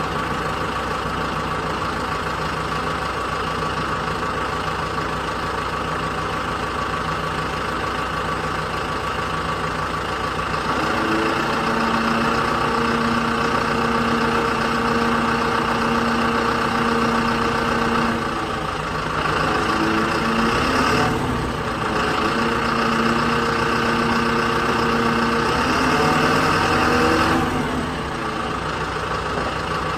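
JCB backhoe loader's diesel engine running steadily. About ten seconds in it runs harder under load with an added steady whine, easing off briefly a few times.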